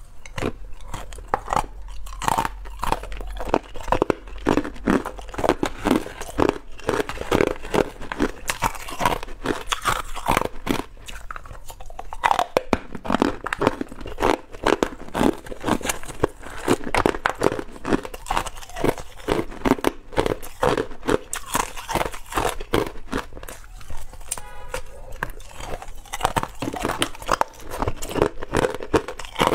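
Hard ice cubes being bitten and chewed close to a lapel microphone: continuous loud, irregular crunching and cracking.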